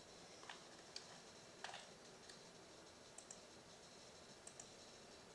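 Faint, scattered clicks of a computer mouse button, several coming in quick pairs.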